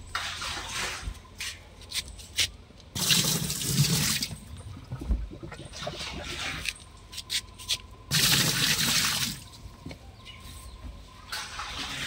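Water poured into the tub of a top-loading washing machine, splashing onto the plastic pulsator, in several spells with pauses between, the strongest about three and eight seconds in.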